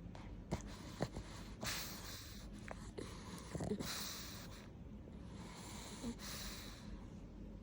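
Pug snoring in its sleep: faint, wheezy breaths about every two seconds, with a few small clicks in the first couple of seconds.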